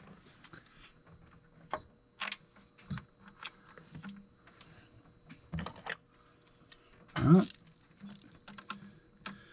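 Scattered light clicks and taps from hands and tools working a radiator hose adapter into place in an engine bay, with one louder short sound about seven seconds in.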